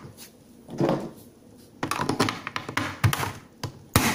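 Plastic clicks, taps and knocks of hands working the digital clock's battery compartment as two AA batteries are fitted. There is a soft thud about a second in, clusters of clicks around two and three seconds, and a sharper knock near the end.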